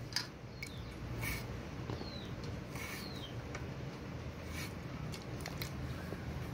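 Raw potato being cut on a boti, a curved fixed kitchen blade: faint crisp slicing and scraping with a few light clicks.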